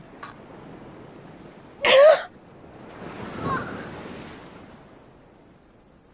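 Waves washing on a shore over a steady surf hiss, with one wave swelling and fading in the middle. A single short choked sob or gasp sounds about two seconds in.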